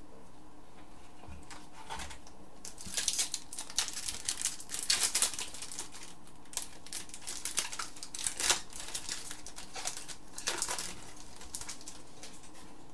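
Foil trading-card pack wrapper crinkling and rustling as it is handled and opened, in irregular bursts, loudest at about three seconds in and again near eight and a half and ten and a half seconds, along with cards being shuffled.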